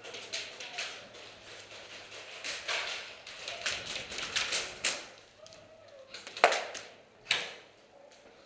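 Airsoft guns firing: a string of sharp clicking shots over the first five seconds or so, then two louder single shots near the end.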